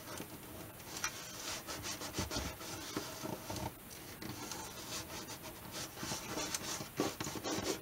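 Thin flat knife blade scraping and working in at the edge of an acoustic guitar's heated bridge, prying at the glue joint to lift the bridge off the top. Quiet, irregular scraping strokes with small clicks.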